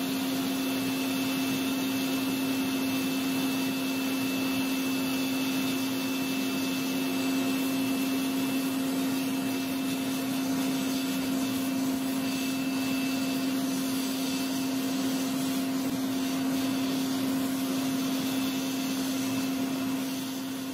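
Steady whir of a forced-air gas forge running, with a constant hum.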